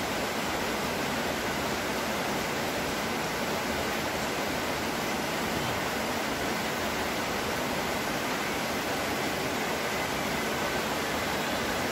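Steady, even hiss of background noise with no distinct events; no clicks from handling the small parts stand out above it.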